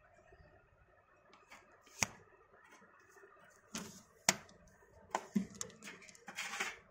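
Close handling noise: a sharp click about two seconds in and another about four seconds in, with short rustles as fingers brush against the phone and handle the idols and their ornaments.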